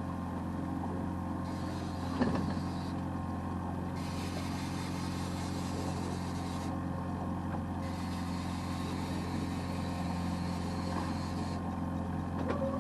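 Boat engine running steadily at low speed, an even low hum, with one short louder sound about two seconds in.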